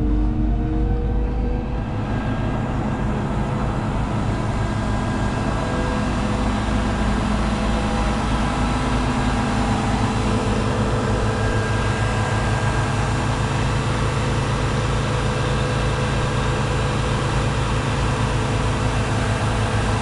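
Zoomlion 70-metre truck-mounted concrete pump with its truck engine running steadily to drive the hydraulics while the boom unfolds. A steady low engine hum carries a steady higher whine above it.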